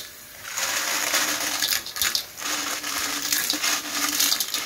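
Many small sea snail shells (siput mata merah) clattering and scraping against an aluminium basin as it is tipped and shaken, a dense rattle of small clicks that starts about half a second in.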